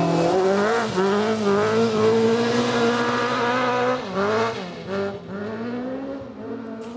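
Rally car engine revving hard under acceleration: the revs climb steeply, hold high, and dip briefly about a second in and again at about four seconds as it changes gear. The engine fades in the last couple of seconds as the car pulls away.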